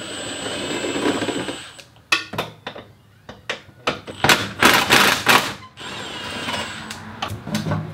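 A power tool run in three short spells of a second or two each, loosening the fasteners to take off the exhaust. Between the spells come sharp metal clicks.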